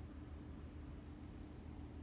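Faint room tone: a steady low hum with a light hiss, with no handling clicks.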